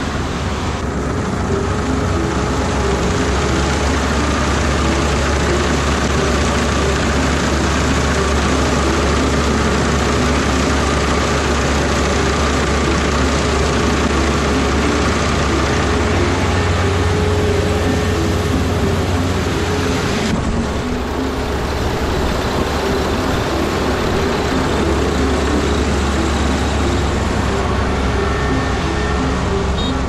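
Kubota combine harvester running steadily under load while harvesting rice, a dense engine and threshing drone with a strong low hum.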